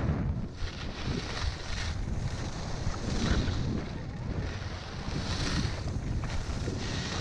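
Wind buffeting the microphone of a skier running down a groomed piste, with skis hissing and scraping on the snow in a swell at each turn, about every one to two seconds.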